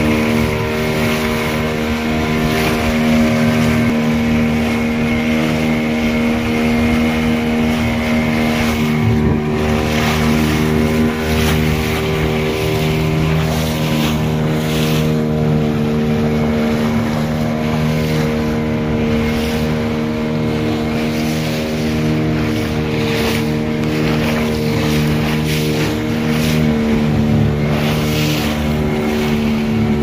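An engine running at a steady speed, its hum holding an even pitch, with wind noise and occasional brief whooshes over it.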